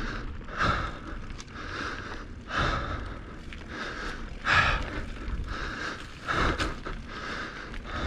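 Mountain biker's heavy breathing, recorded close to the mouth by a chin-mounted helmet camera. There is roughly one breath a second, the hard breathing of pedalling a climb.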